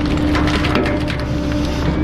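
Bulky items, mostly wood, cracking and splintering as a garbage truck's compactor crushes them. Rapid irregular snaps sound over a steady hum.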